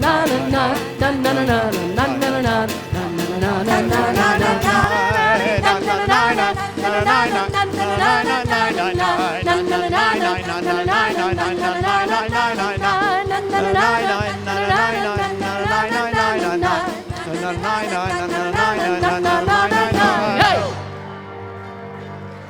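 A worship band and congregation sing a wordless "na na na" refrain of a Hebrew praise song over a steady drum beat. About two seconds before the end the song stops on a final chord, which fades under a lingering held note.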